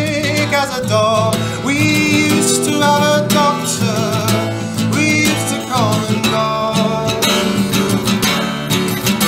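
Acoustic guitar played with steady strokes while a man sings long, wavering notes over it, without clear words.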